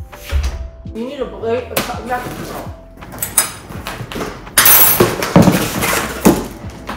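Packing tape on a cardboard box being slit with a blade, then tape tearing and the cardboard flaps being pulled open, with the loudest stretch of ripping about halfway through, lasting over a second.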